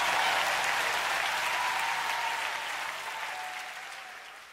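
Audience applause, fading out steadily to near silence.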